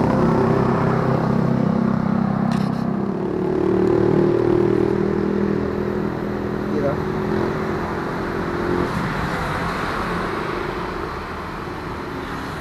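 Motor traffic on the road beside the drain: a steady engine drone from passing cars and motorcycles that eases off in the second half.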